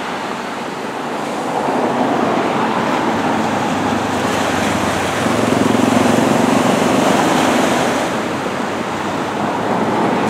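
Small surf breaking and washing up the beach, a steady rush that swells twice, about a second and a half in and again around the middle.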